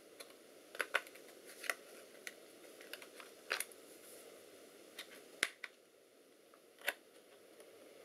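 Scattered light clicks and taps of an 8 GB laptop memory card being fitted and pressed down into its socket. There are about half a dozen sharp clicks, spread irregularly over low hiss.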